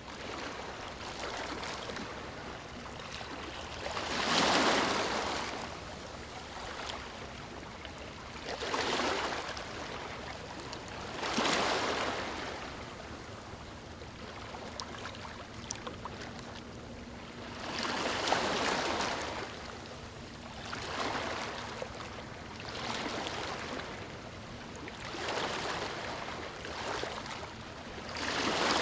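Calm waves washing onto a sandy beach: each wave comes in as a soft rush of surf that swells and fades, one every few seconds, over a steady hiss of water.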